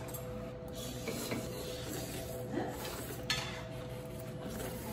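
A steady machine hum with two faint steady tones over it, and a single light click or clink about three seconds in.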